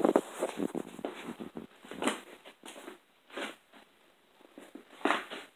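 Handling noise: a run of rustles, clicks and scrapes, with louder scuffs at the start, about two seconds in, about three and a half seconds in and near the end.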